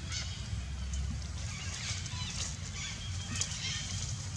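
A few short, high animal calls that rise and fall in pitch, over a steady low rumble.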